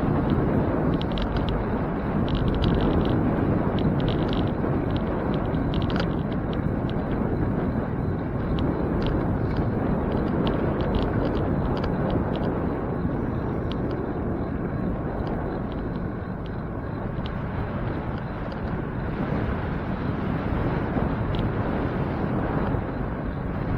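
Steady rumbling wind and road noise from riding a bicycle, with scattered faint ticks, most of them in the first few seconds.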